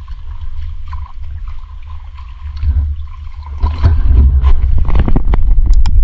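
Water sloshing and gurgling around the camera, a steady low rumble with scattered crackles, turning into louder splashy bursts about four seconds in.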